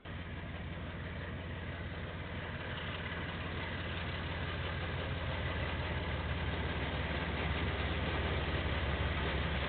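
Diesel locomotive engine running with a steady low drone, growing steadily louder as it approaches, heard through a security camera's microphone.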